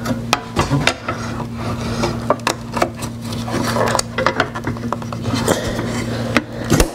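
Plastic parts of an Acura NSX headlight assembly being handled and fitted, with many small clicks, taps and rubbing as a wiring connector is plugged in and pieces are pushed into place. A steady low hum runs underneath.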